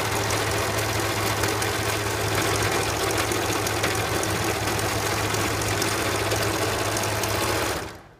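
Overlocker (serger) running at a steady speed as it stitches along the edge of a seam, then stopping just before the end.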